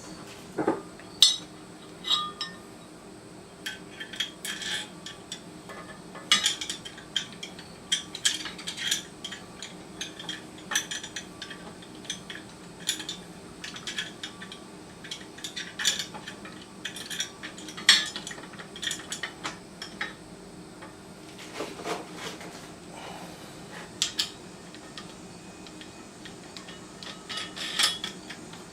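Metal hardware of a miter saw stand clinking and clicking irregularly as parts such as a bolt, a knob and a wood-stop bracket are handled and fitted, with a faint steady hum underneath.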